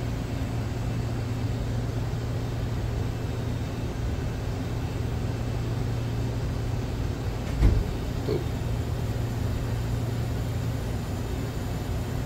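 A steady low machine hum, with one short knock about eight seconds in.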